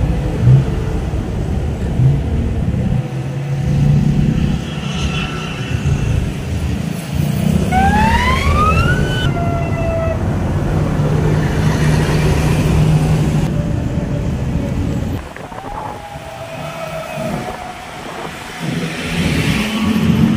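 Low, steady rumble of road traffic. About eight seconds in, a rising siren-like wail sounds over it. The rumble eases a little about fifteen seconds in.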